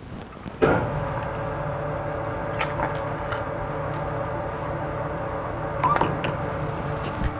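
Soft-serve ice cream machine starting up about a second in and running with a steady hum while sorbet is drawn from its tap, with a few short clicks from the dispensing lever and cup.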